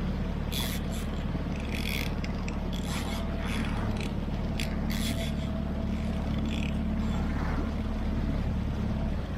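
Small skiff's outboard motor running steadily under way, with the hull's wash and several short hissing bursts in the first half. The engine note drops off right at the end as the boat slows.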